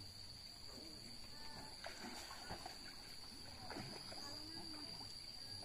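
Faint, distant voices of people talking, with a steady high-pitched tone held underneath.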